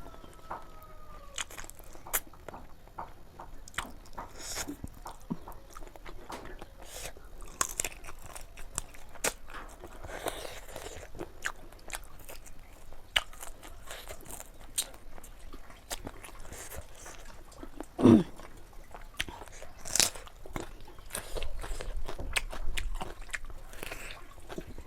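Close-up chewing and biting of chicken curry: moist smacking and crunching as chicken feet and gizzards are chewed, with many small sharp clicks throughout. One louder, brief sound falling in pitch comes about eighteen seconds in.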